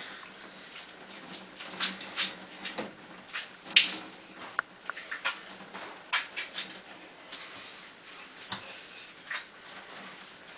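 Water splashing in a bathtub as a wet cat is washed by hand: short, irregular splashes, the loudest about four seconds in.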